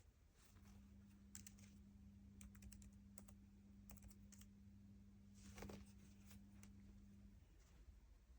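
Faint keystrokes on an HP EliteBook 835 G7 laptop keyboard, typed to log in. A faint steady low hum runs beneath them and stops about a second before the end.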